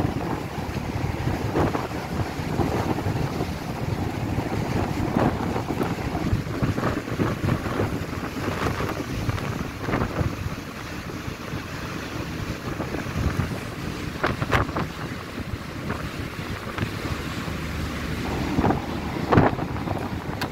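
Gale-force wind buffeting the microphone in irregular gusts, over the rush of choppy sea.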